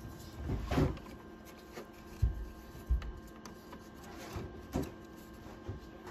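Hands rustling paper and cardboard and knocking lightly on a plastic egg incubator tray while wedging dividers between duck eggs. There are two dull thumps about two and three seconds in, scattered small clicks, and a faint steady hum underneath.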